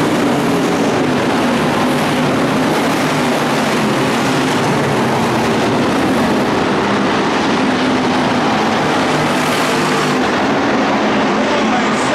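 IMCA Hobby Stock race cars' V8 engines running hard around a dirt oval, a loud, steady engine drone with no let-up.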